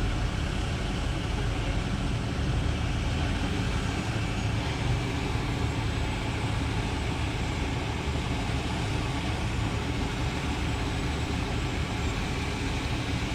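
Vehicle engines running steadily, a low rumble with an even hiss of traffic and street noise over it.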